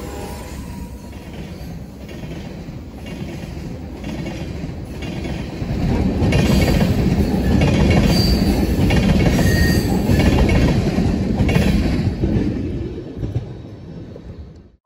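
Freight train cars, covered hoppers and tank cars, rolling past with a steady rumble and wheels clacking over the rail joints about once a second, plus a couple of brief high wheel squeals. It is loudest in the middle and fades as the last cars go by near the end.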